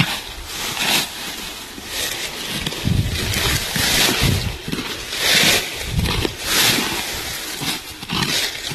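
Small hand hoe chopping and scraping into dry soil and leaf litter, a rough stroke about once a second.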